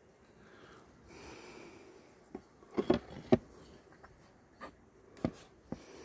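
Handling noise: several short, sharp taps and knocks, the loudest a little over three seconds in, as a hand and phone brush and bump against the wooden box of a Flow Hive 2 beehive.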